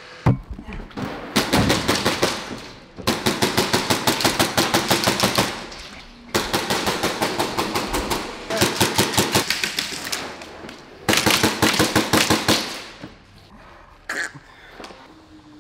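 HPA airsoft guns firing on full auto in five rapid bursts, each one to two and a half seconds long, with a single sharp crack just before the first.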